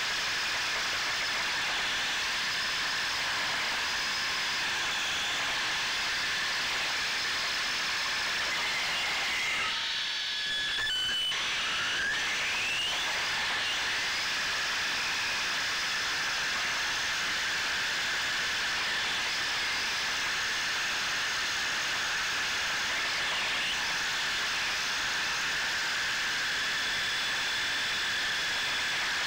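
Electric RC drift car's motor and gears whining, picked up by the onboard camera over a steady high hiss. There is a short break in the sound about ten seconds in, and the whine rises in pitch a couple of times just after it.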